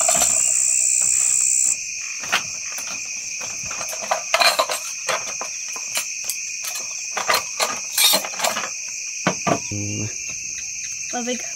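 Insects chirring in a steady high-pitched chorus; the highest and loudest one stops about two seconds in. Scattered short clicks and knocks come throughout.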